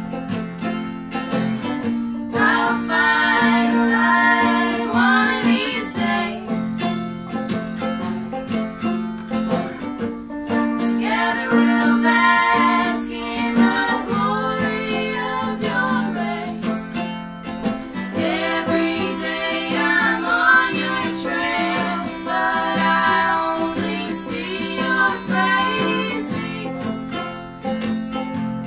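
Female voices singing in harmony over a picked mandolin, acoustic guitar and banjo: an acoustic string-band song. The voices come in for phrases of a few seconds, with picking alone between them.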